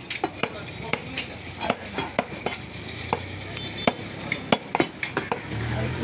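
Cleavers striking wooden chopping blocks at a butcher's stall: irregular sharp knocks and clacks, a few each second.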